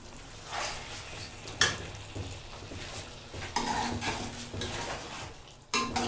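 A spoon stirring and scraping chicken in cream gravy in a pan, with light sizzling and a few knocks of the spoon against the pan. The sharpest knock comes about one and a half seconds in.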